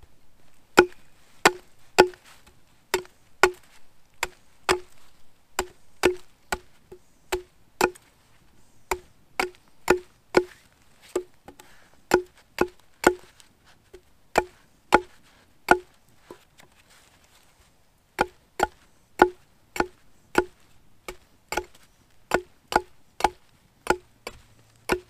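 Hatchet striking the top of an upright wooden pole again and again, pounding it into a log: sharp wooden knocks about two a second, with a pause of a couple of seconds about two-thirds of the way through.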